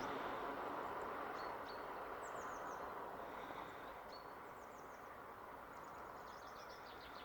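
Steady outdoor background noise that fades slightly, with small birds chirping over it: several quick runs of high, falling chirps and a few short whistled notes.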